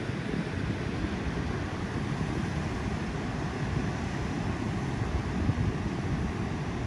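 Steady wind rumbling on the microphone, with surf breaking on the shore.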